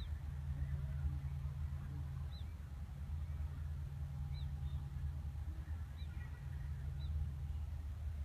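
A steady low wind rumble on the microphone, with a bird giving about five short, high chirps, each falling in pitch, a second or two apart.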